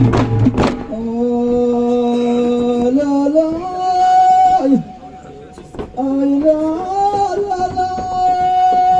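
Frame drums beat briefly and stop about a second in; then a man's voice sings two long held phrases of an Ahwash chant, each climbing in steps to a higher note, with a short break in between.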